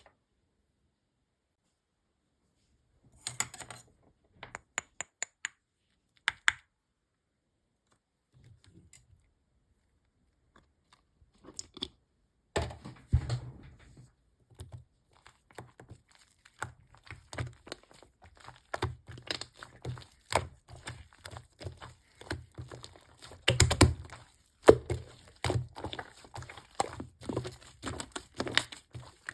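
Shaving-foam slime being handled: it pokes, stretches and presses with crackly pops and squishes. A few scattered clicks give way, about halfway through, to dense crackling and popping.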